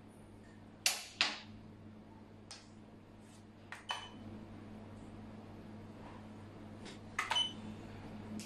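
Xiangqi pieces set down with sharp clacks on a wooden board, with clicks from the game clock. There is a loud double clack about a second in, lighter taps a few seconds in, and a quick cluster of three clacks near the end, one move for each side.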